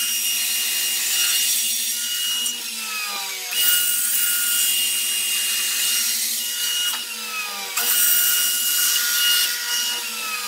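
1950 Stenner chain mortiser running with a steady motor whine while its chain cuts into hardwood with a rasping hiss. Twice the whine slides down in pitch and the sound dips for about a second as the chain takes the load of the cut, then jumps back up.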